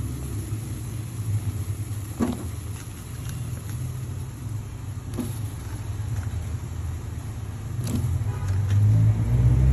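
Water at a rolling boil in an aluminium pot over a gas burner, a steady low rumble that grows louder near the end. A few short splashes or knocks, about two, five and eight seconds in, as cut moringa pod pieces are dropped in.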